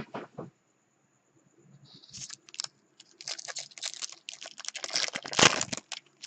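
Trading card box and pack packaging being handled and opened by hand: a run of crinkling, crackling and clicking sounds that starts about two seconds in and is loudest near the end.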